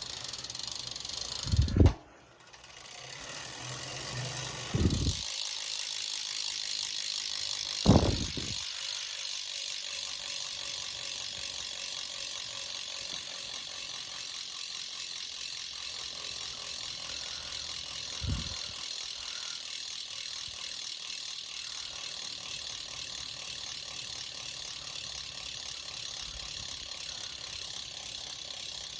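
Mavic Crossride rear hub freewheeling as the wheel coasts, its pawls giving a steady fast ticking buzz that stops briefly about two seconds in and then resumes. A few dull thumps sound over the first twenty seconds.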